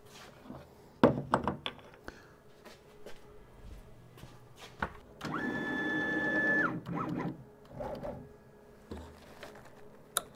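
CNC router gantry's stepper motors jogging an axis for about a second and a half: a steady motor whine that starts and stops abruptly. Light knocks and keyboard taps come before it.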